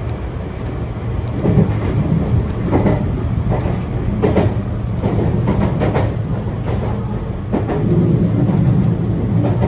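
Meitetsu electric commuter train running, heard from inside the front car: a steady low rumble of wheels on rail, with a series of sharp clacks as the wheels cross rail joints and the points of a junction.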